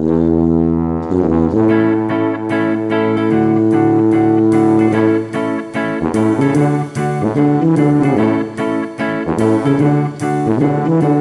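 Instrumental background music with a steady beat of plucked notes.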